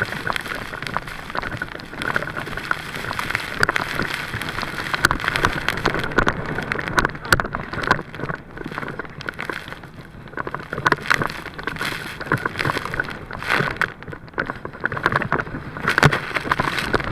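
Water rushing and splashing against an inflatable tube towed at speed behind a jet ski, with irregular sharp slaps as it crosses the wake and spray hits the camera.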